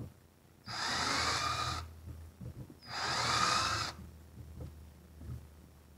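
Power drill boring into wood in two short runs of about a second each, cutting a deeper recess for a keyhole hanger; the motor whines up as each run starts.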